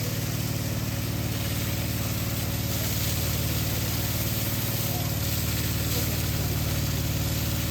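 A motor running steadily with a constant low hum, over an even rush of flowing water.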